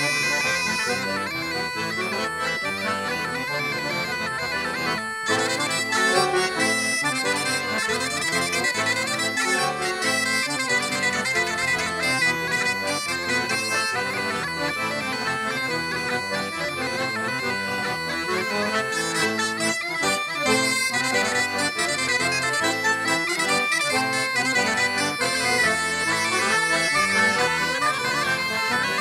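Traditional Breton dance music, continuous and dense, carrying the dancers' group dance.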